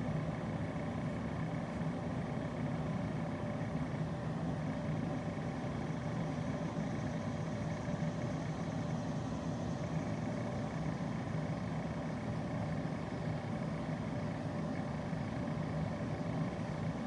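Steady background hum and noise with a few faint constant tones, unchanging throughout.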